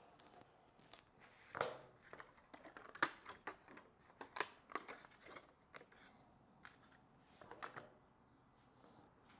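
Knife blade cutting through a glued stack of thin styrene strips on a wooden board, with pieces handled on the table: an irregular run of sharp clicks and scrapes, the loudest a little over a second in and again about three seconds in.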